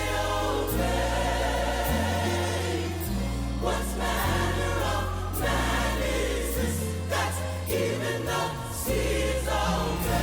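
Collegiate gospel choir singing in full harmony over instrumental backing, with low bass notes changing every second or so.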